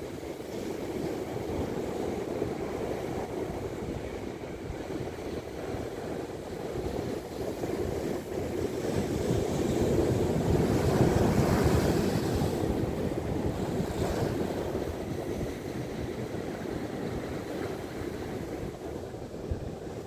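Heavy Atlantic surf breaking and washing over rocks at high tide, a steady rushing that swells loudest about halfway through as a bigger wave breaks, then eases.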